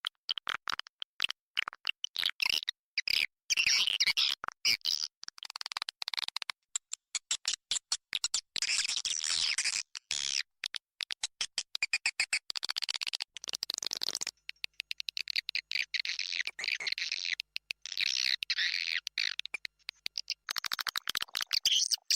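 Recorded swiftlet calls played as an external lure sound for a swiftlet house: dense, rapid chirping and twittering chatter, chopped by many very short breaks.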